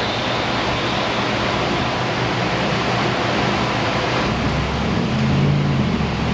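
Steady loud rushing noise, like air or a large fan blowing. About five seconds in, a low steady mechanical hum joins it.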